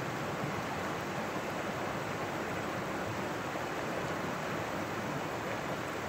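Mountain stream flowing: a steady, even rush of water.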